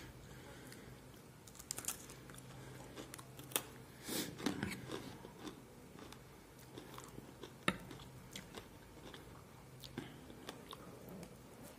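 Close mouth sounds of a man chewing and biting food, with scattered sharp clicks of a spoon against a metal bowl. The clicks cluster about four seconds in, and the loudest comes near eight seconds.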